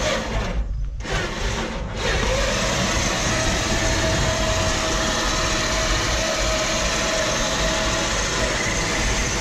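Electric-converted MTD Yard Machine lawn tractor driving forward: its 24-volt winch motor, run through a speed controller, gives a steady whine over a steady rushing noise of the tyres rolling on gravel. The rushing noise sets in about two seconds in.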